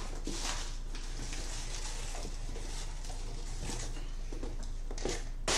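Cardboard shipping box being handled and opened by hand: faint scattered rustles and soft taps, with a sharper knock near the end.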